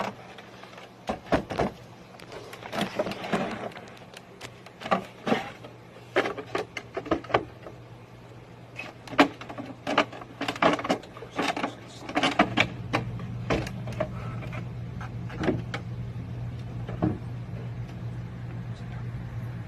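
Irregular knocks and taps, joined about two-thirds of the way through by a steady low hum that continues.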